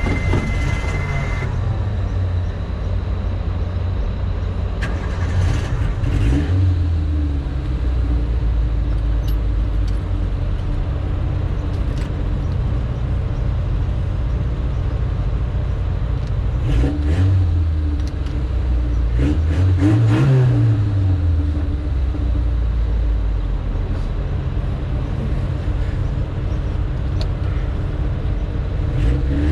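Suzuki Samurai's small four-cylinder engine running at a steady idle after being refuelled from empty. It is revved up and let fall back a few times: once about six seconds in, then twice close together past the middle.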